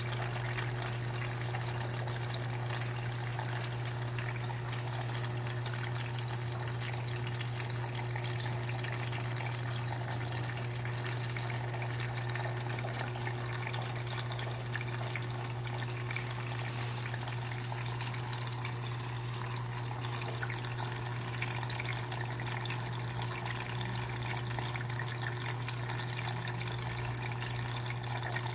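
KMC washing machine taking in water: a steady rush of running water over a constant low hum.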